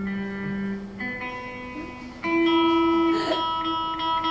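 Electric guitar music playing three long held notes, each higher than the last; the third and loudest starts about two seconds in and carries on.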